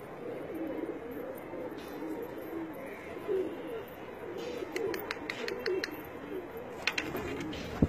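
A flock of domestic pigeons cooing, with many low, wavering coos overlapping all the way through. A few sharp clicks come in the second half, and a loud knock falls right at the end.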